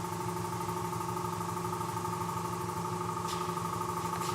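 Boxer VBS2612 vertical bandsaw running steadily, a constant motor hum with a steady whine over it.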